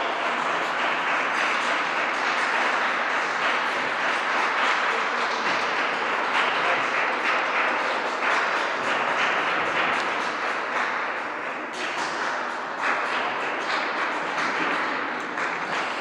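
Audience clapping steadily, a dense run of many hands with no music.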